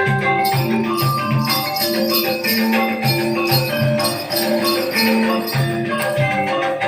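Javanese gamelan music for the Remo dance: metallophones play a steady, repeating run of pitched notes over regular drum strokes, with bells jingling along.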